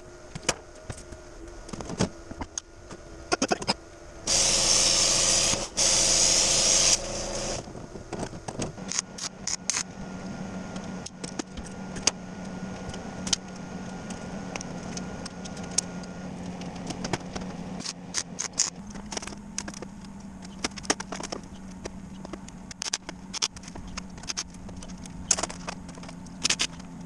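Sheet metal panels being handled, with repeated clanks, taps and rattles. Two loud bursts of hiss come about four seconds in and stop after about three seconds, and a steady low hum runs through the second half.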